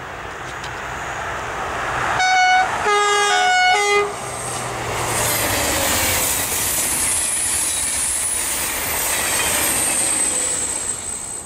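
TGV high-speed train sounding its horn in short notes, first a high one then lower ones, as it approaches. It then passes close by with a loud, steady rush of wheels and air and a high whine that slides down in pitch as it goes by.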